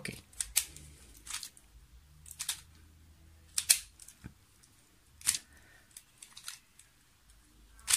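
2x2x2 gear cube being twisted by hand to scramble it: sharp plastic clicks and clacks of the gear pieces, about one or two a second at uneven gaps.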